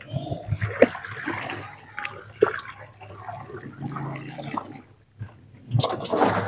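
Wet laundry being lifted, wrung and sloshed in the water of a twin-tub washing machine's wash tub: irregular splashes and drips, with a louder splash near the end.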